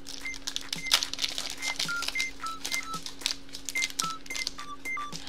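Foil trading-card booster-pack wrapper crackling and crinkling in quick clicks as it is torn open, over light background music with short plucked notes.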